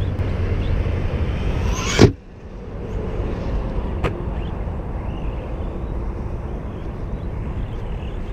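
Brushless motor of an Arrma Big Rock 3S BLX RC monster truck whining up in pitch under throttle, then cutting off abruptly about two seconds in. After that a steady low rumble of noise, with a single faint click about four seconds in.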